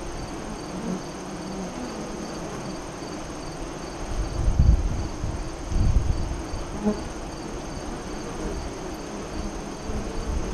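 Honey bees buzzing around the hive entrance, with a high, even chirping repeating about two to three times a second in the background. There are low rumbles about four and a half and six seconds in.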